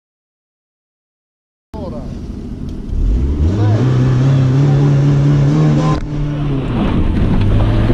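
Silence for the first couple of seconds, then a Kia Sportage's engine heard from inside the cabin: it runs, revs rise about three seconds in and are held high, dip briefly near six seconds, then run hard again.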